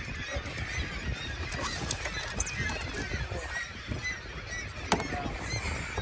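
Birds calling over and over in short cries over a steady low rush of wind and water, with one sharp click about five seconds in.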